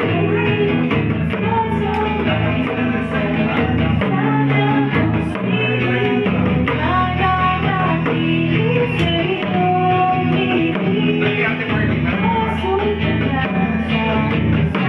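Live acoustic set: a woman sings lead into a microphone over acoustic guitar, with light percussion played on small drums.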